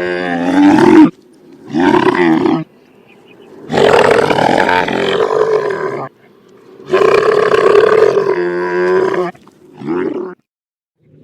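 Camel calling: five rough, gurgling calls in a row with short gaps between them, the longest about two seconds and the last one brief.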